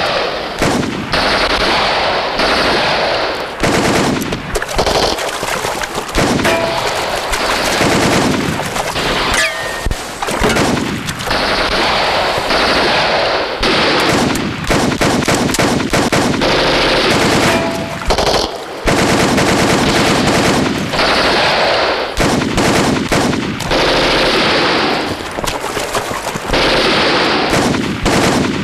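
Heavy automatic small-arms fire in a battle scene: rifles and machine guns firing rapid overlapping bursts, nearly continuous, with a few brief pauses.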